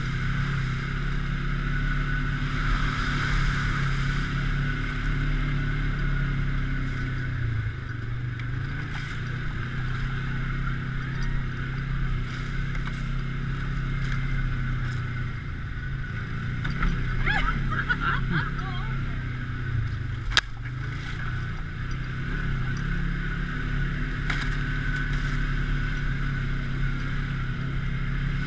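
A motor vehicle's engine running steadily at a fairly even speed, with a bumpy rumble. There is a single sharp knock about two-thirds of the way through.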